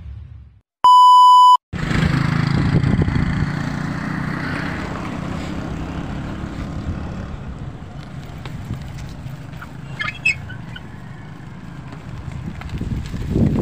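A loud, steady beep tone lasting under a second, about a second in. Then a small motorbike engine runs steadily while riding along a road, with wind rushing on the microphone.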